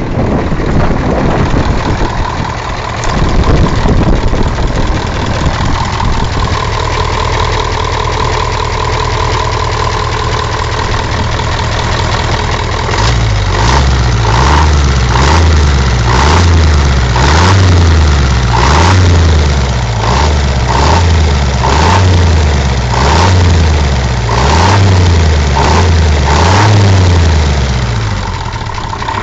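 KrAZ crane truck's 14.9-litre V8 diesel engine running after 15 years standing. It idles steadily at first. About halfway through, its speed rises and falls in a regular cycle about once a second, then it settles back to idle near the end.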